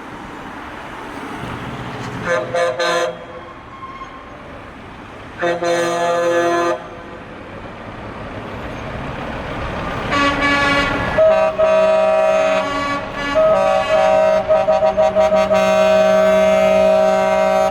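Truck horns honking from passing convoy trucks: a short blast, a longer one, then a long, nearly continuous horn over the rising rumble of heavy traffic.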